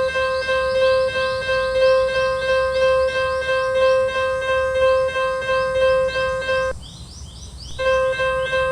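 Electronic level-crossing warning sound: a loud, steady tone with rapid chirps on top, about five a second. It breaks off about seven seconds in and resumes a second later.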